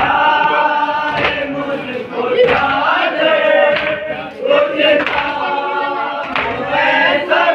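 Group of men chanting a noha in unison, with hand-on-chest beating (matam) keeping time, landing about once every second and a quarter.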